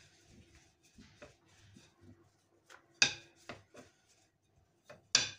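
Dough being rolled out with a thin wooden rolling pin on a silicone mat: soft rubbing and rolling, broken by a few sharp wooden knocks, the loudest about three seconds in and near the end.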